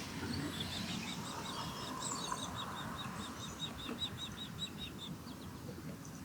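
Osprey calling: a steady series of short, high chirps, about five a second, that stops about a second before the end, over a low steady rumble.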